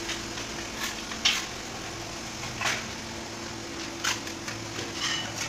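A steady low hum with five or six short, sharp clicks and scuffs at irregular intervals.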